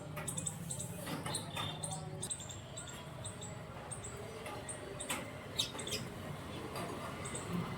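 Parakeets chirping: many short, high squeaky chirps scattered irregularly, with a few sharp clicks mixed in, the loudest a bit over halfway through.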